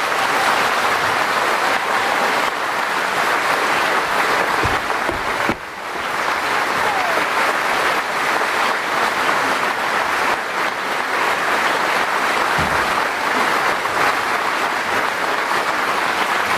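Audience applauding steadily after a song, with a brief lull in the clapping about five and a half seconds in.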